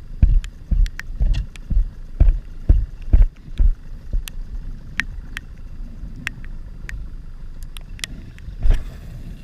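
Choppy water slapping against the hull of a small boat, heard as a series of irregular low thumps over the first few seconds. Sharp raindrop ticks are scattered throughout, and there is one louder rustling thump near the end.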